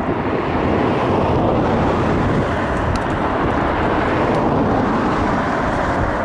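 Beechcraft King Air's twin turboprop engines running steadily as it comes in to land, mixed with wind on the microphone.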